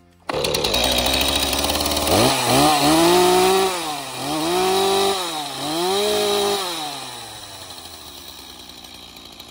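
Stihl MS-231 two-stroke chainsaw starting on half choke, running, then revved three times, each rev rising and falling in pitch, before the sound dies away near the end.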